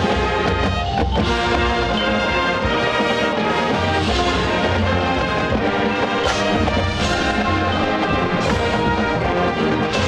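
High school marching band playing its field show: full brass with sousaphones over drums and front-ensemble percussion, loud and steady, with a couple of sharp crashes in the second half.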